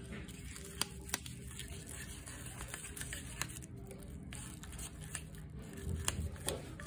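Faint scattered clicks and soft handling noises from working a homemade clay slime mixture as it thickens into slime.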